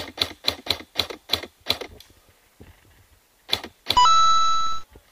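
Airsoft replica firing a quick string of single shots, about four to five a second, then two more shots a little later. Near the end comes a loud steady tone lasting under a second, louder than the shots.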